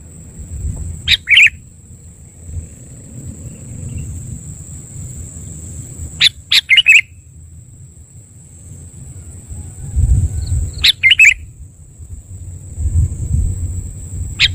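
Sooty-headed bulbul (kutilang) giving short, loud calls of two or three quick notes, repeated about every four to five seconds, four times, the last right at the end. A low rumble fills the gaps between calls.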